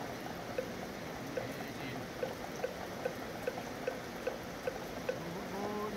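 Steady rain with a moktak (wooden fish) struck in an even beat of about two and a half knocks a second. A monk's sustained sutra chanting comes in near the end.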